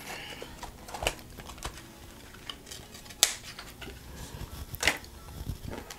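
Cardboard slipcover sliding off a plastic Blu-ray case, then the case handled and set down on a cloth-covered table: scattered light scrapes and clicks, the sharpest about three seconds in.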